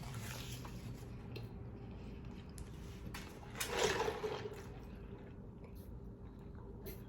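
Wet eating sounds close to the microphone: soft chewing and small mouth clicks, with one louder wet slurp a little past the middle.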